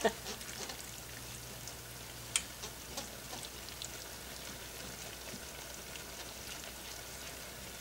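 Whisk stirring thick flour-and-milk gravy in a skillet, over a faint, steady crackle of the simmering gravy, with a sharp tick a little over two seconds in.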